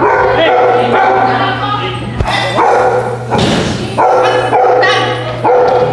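Small dog barking and yapping repeatedly in short bursts.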